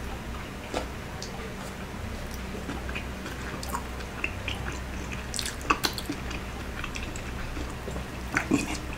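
Close-miked eating sounds: a man chewing, with wet mouth noises and scattered short sharp clicks, the loudest a pair about two-thirds of the way through. A steady low hum runs underneath.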